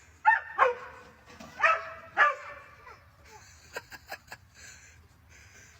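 A dog barking: four short barks in the first two and a half seconds, then a few light clicks about four seconds in.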